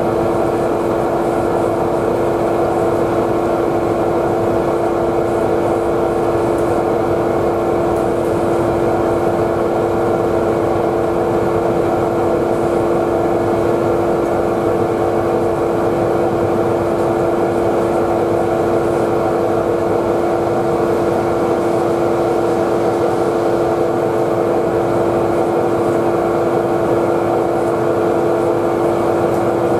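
Diesel engine of a passing sand-dredging gut ship, a steady drone with a constant low hum running evenly throughout.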